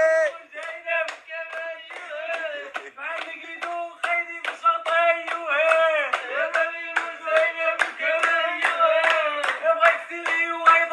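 A group clapping hands in a steady rhythm, about three to four claps a second, while a voice sings along.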